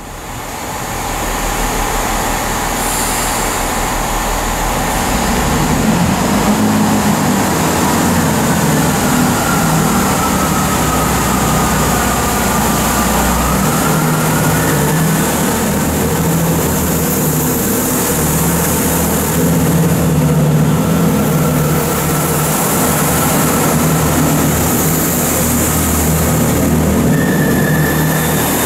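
Chiltern Railways Class 165 diesel multiple unit's underfloor diesel engines running as it moves along the platform, with a faint whine that dips and rises again about halfway through.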